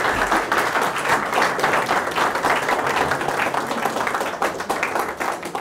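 Audience applauding: many hands clapping at once in a dense patter, easing off a little near the end.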